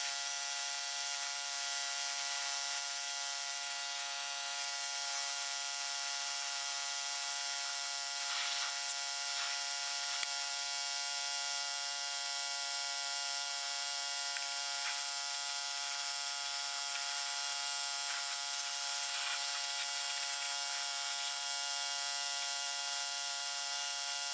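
A small motor or engine running at a steady, unchanging speed, a constant drone with a few faint clicks.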